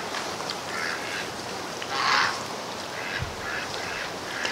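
A few short, harsh waterfowl calls over a steady background hiss, the loudest about two seconds in.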